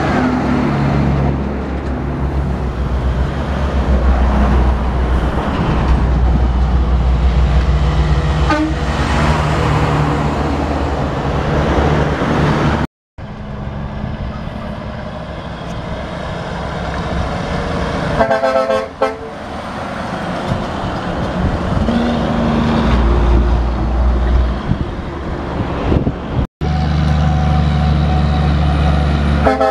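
Heavy diesel tractor-trailer trucks running past under load, their engines loud and steady. Air horns sound a few times: a brief toot about a third of the way in, a longer warbling blast about two-thirds of the way through, and another toot near the end. The sound cuts out abruptly twice.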